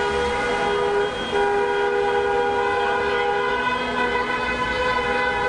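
Many car horns held down together at several different pitches, a continuous chorus of celebratory honking from cars in a street motorcade. Some horns drop out and others join, so the mix of tones shifts a little over a second in and again later on.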